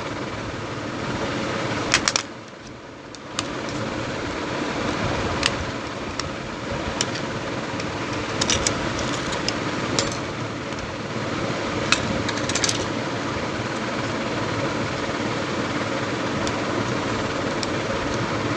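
Scattered sharp clicks and taps of a tool and plastic as the case of a Nokia 1304 mobile phone is pried open, over a steady background hum that drops away briefly about two seconds in.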